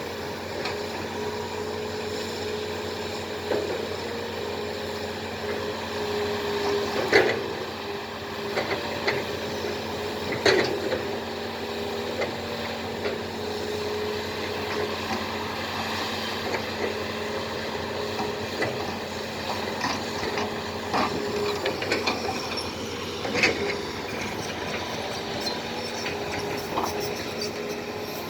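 Excavator diesel engines running steadily, with sharp knocks and clanks now and then, the loudest about seven and ten seconds in.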